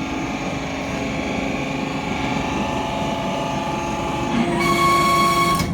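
Hydraulic power unit of a scrap metal baler running under load while the main press cylinder compresses the bale. About four and a half seconds in, a steady higher-pitched whine joins and grows louder, then breaks off abruptly at the end.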